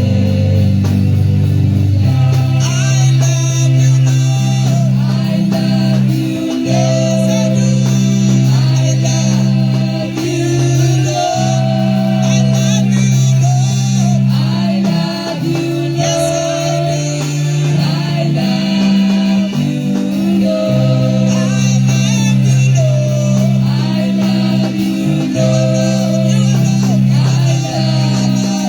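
Live gospel worship music: singing over a band with bass guitar, electric guitar and drums.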